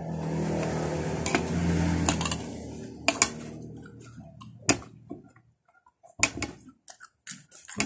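A steady low hum with hiss, loudest in the first two seconds and fading out, from an unseen source. Over it and after it come scattered sharp clicks and small knocks as cooked bananas are handled and peeled over a bowl, with some chewing.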